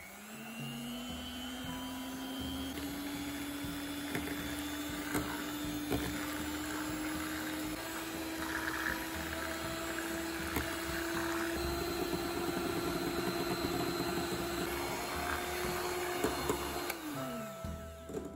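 Electric hand mixer (Polaris) whipping sour cream in a glass bowl: the motor spins up at the start, runs with a steady whine that creeps slightly higher in pitch, and winds down with a falling pitch shortly before the end. Scattered light clicks sound over it.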